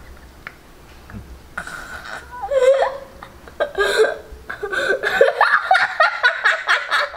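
A boy laughing hard in repeated bursts, starting about a second and a half in and running almost without a break over the last couple of seconds.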